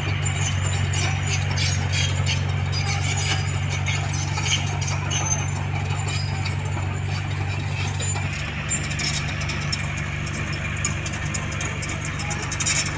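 Diesel engine of heavy earthmoving equipment running steadily, with light metallic clicking and clinking over it; the engine note lowers about eight seconds in.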